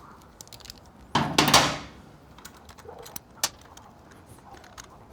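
Metal tools and small parts being handled: a short metallic jangle about a second in, then a single sharp click, with quiet hand work between.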